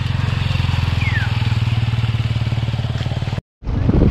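Small motorcycle engine running steadily at low revs, heard from the rider's seat. The sound drops out for a moment near the end, then the engine running picks up again.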